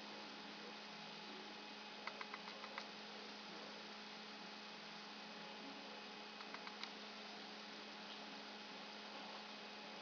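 A faint steady low hum with a soft hiss behind it. Two brief runs of quick soft clicks break in, about two seconds in and again past the middle.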